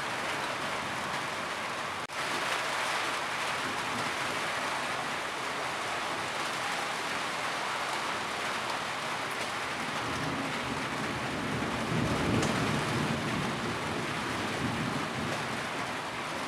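Steady rain falling on a roof, with a low rumble swelling up in the second half.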